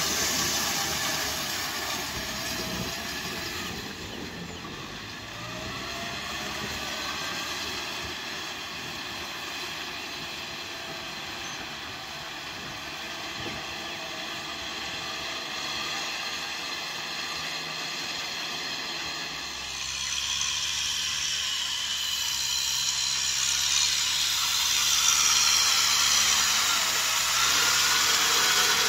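Kubota M6040SU tractor's diesel engine running steadily under load as its rotary tiller churns through wet mud. It turns somewhat quieter about four seconds in and louder again in the last third.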